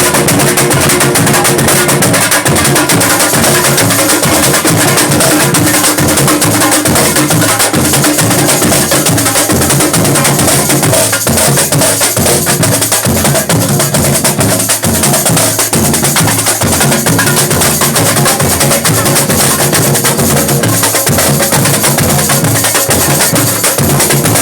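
A comparsa drum troupe plays a loud, driving percussion rhythm on drums, with a sharp clacking part over the beat.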